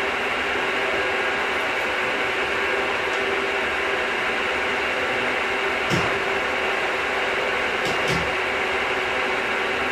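Metal milling machine running steadily as it cuts, with a few sharp clicks about six and eight seconds in.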